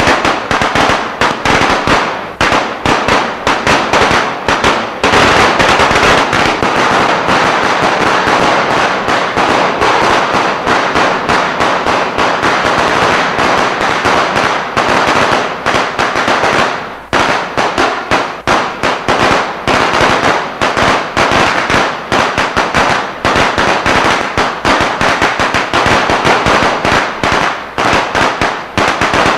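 Eco-friendly firecracker machine sounding a long, rapid string of firecracker cracks, thickest through the middle, with a brief lull a little past halfway.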